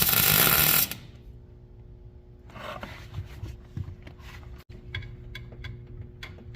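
A power tool runs in one loud burst of about a second, then stops; after it come scattered clicks of tool handling over a faint steady hum.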